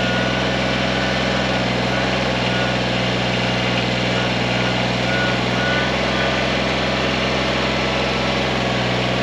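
Kubota tractor engine running steadily at an even, unchanging speed.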